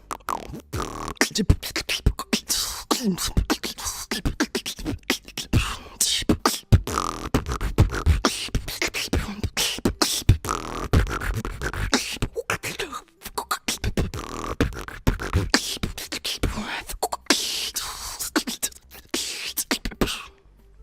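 Solo beatboxing: a fast, unbroken stream of mouth-made drum sounds, deep thumps mixed with sharp clicks, stopping suddenly just before the end.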